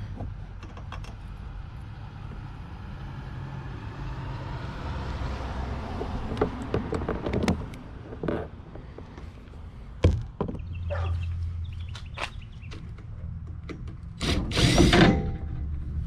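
DeWalt impact driver running in a short burst near the end, loosening a nut. Scattered knocks and clicks of tools and hardware sound over a low steady hum.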